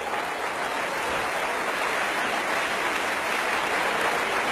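Theatre audience applauding, a steady clatter of clapping that swells at the start and holds.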